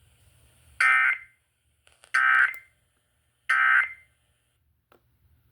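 Three short bursts of Emergency Alert System digital data tones, a buzzy warbling sound about a second apart: the end-of-message code that closes the Amber Alert broadcast.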